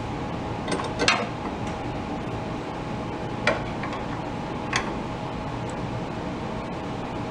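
A few sharp metal clinks as a steel three-jaw gear puller and wrench are handled and fitted over a hub, over a steady background hum.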